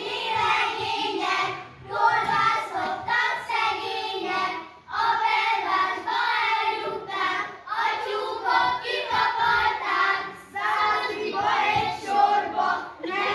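A group of children singing a Hungarian folk song together, in phrases with short breaks between them.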